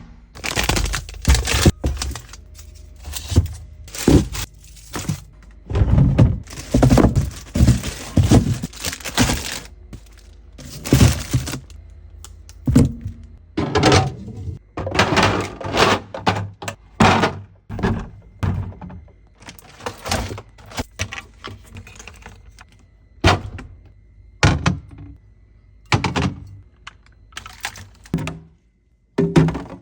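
Irregular thunks, knocks and clatter of containers and fridge parts being handled, taken out and set down during fridge cleaning, heard in a small room.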